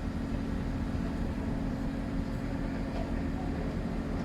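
A heavy engine running steadily with a low, even hum.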